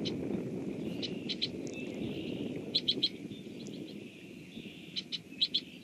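A small bird's sharp, high call notes in three quick clusters of two or three chips each, over a steady low rush of rain on the wetland.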